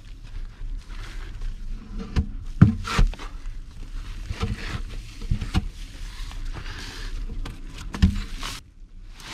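Heavy round logs being handled and set in place: several dull wooden knocks as log meets log, the loudest a few seconds in and another near the end, over scraping and rustling as the log is dragged along.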